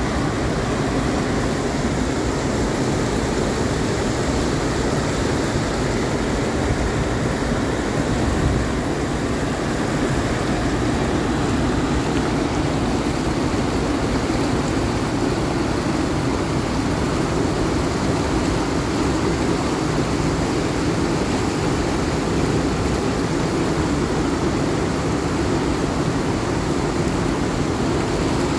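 Waterfall and whitewater rapids rushing: a steady, loud wash of falling and churning water.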